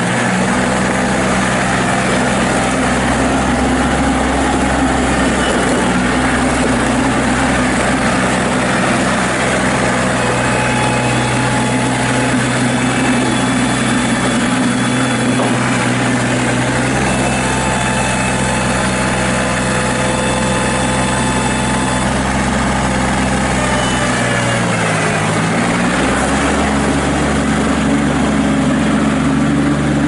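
2007 Kubota L3430 compact tractor's diesel engine running steadily as the tractor drives. About 25 seconds in, the engine note dips briefly and climbs back up.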